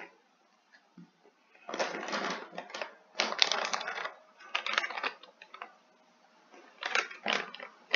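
Snack-chip bag crinkling and crackling as it is picked up and handled, in several loud bursts starting about two seconds in.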